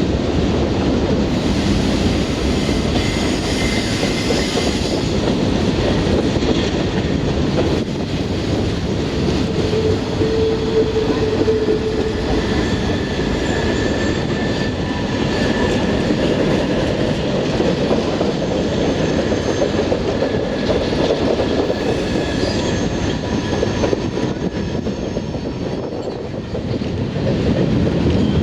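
Norfolk Southern freight train rolling past on the tunnel approach: a steady loud rumble of wheels on rail with clickety-clack, and high wheel squeals coming and going.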